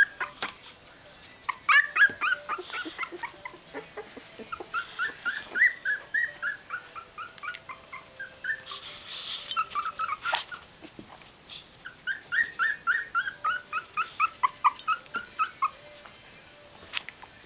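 Young puppies squealing and whimpering in quick runs of short, high squeaks, several a second, with short pauses between the runs.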